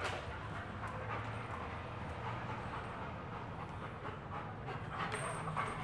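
An akita and a smaller dog playing together, scuffling at close quarters.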